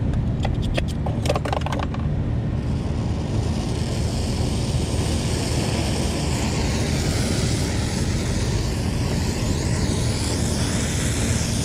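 A flint striker scraped about eight times in quick succession, then a brazing torch catches about two and a half seconds in and burns with a steady hiss over a low rumble.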